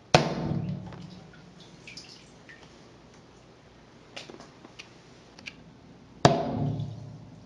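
Two sharp bangs about six seconds apart: Federal 209A shotgun primers fired under water from a pen-style flare launcher, each blast shattering the plastic flare housing around it. Each bang is followed by about a second of fading rumble, and there are a few faint clicks and taps between them.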